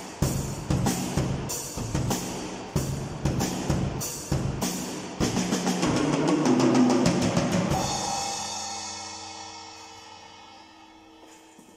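Freshly tuned PDP drum kit played in a steady beat of bass drum, snare and cymbals, about two hits a second. About five seconds in it breaks into a dense, loud fill, and the last hit is left ringing and fading away over the final few seconds.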